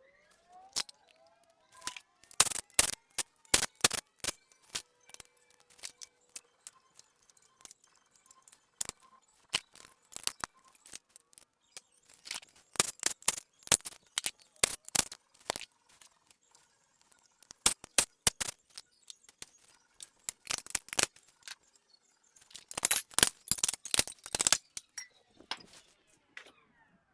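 Metal engine parts and hand tools clinking and clattering in irregular clusters of sharp clicks while the front end of a Ford Boss V8 is stripped down.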